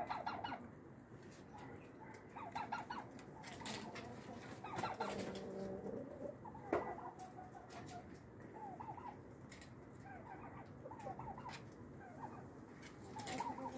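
Chickens clucking softly in short, scattered calls, with one longer call about five seconds in and a few sharp taps in between.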